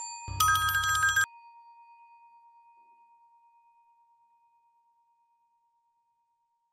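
Elevator call bell: an electric bell rings rapidly for about a second just after the button is pressed. Over it, a single high chime note struck a moment earlier fades slowly with a slight waver over the next three seconds.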